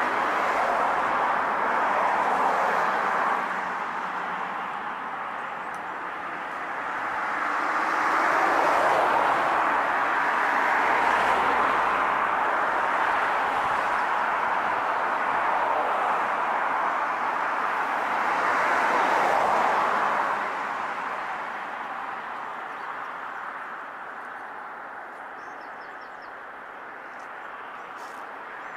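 Steady rushing of distant road traffic that swells and fades several times and grows quieter in the last third.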